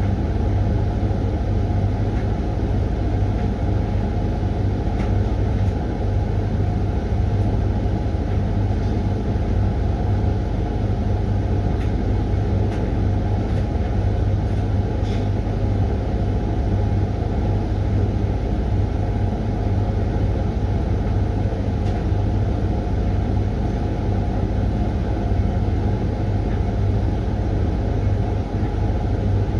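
Hoover washing machine running mid-cycle on its 20-minute Refresh programme: a steady, even motor hum that does not change.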